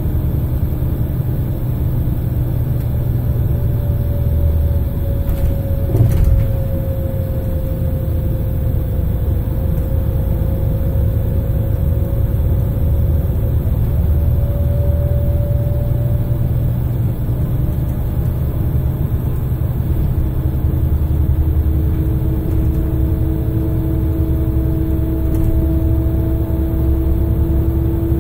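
Scania L94IB bus under way, heard from inside the saloon: the low rumble of its DC9 diesel engine with the whine of its ZF Ecomat 5HP600 automatic gearbox. The whine slides slowly down and back up in pitch, then climbs again near the end, with a single knock about six seconds in.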